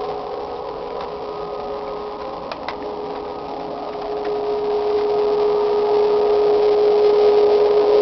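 Loud unexplained drone: one steady pitched tone with a hazy band of higher tones above it, swelling louder over the second half. Two faint clicks about two and a half seconds in.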